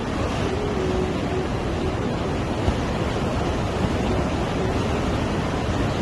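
Sea surf breaking and washing over coastal rocks: a steady, continuous rush of waves.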